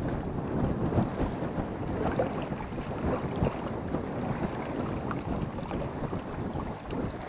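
Wind noise on the microphone over small waves lapping and splashing against the rocky shoreline.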